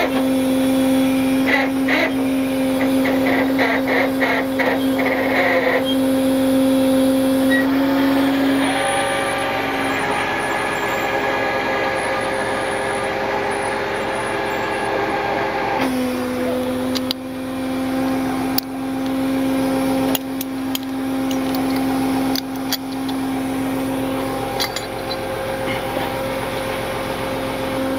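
Tow truck winching a car: a steady pitched whine from the truck's winch drive and engine running under load. The pitch steps slightly a couple of times. A quick run of clicking comes in the first few seconds and scattered sharp knocks come in the second half.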